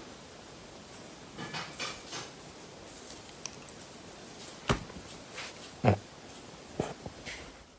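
Quiet handling noises as a puppy is scratched and rolls over on a couch: soft rustling of fur and cushions, with a few short knocks in the second half.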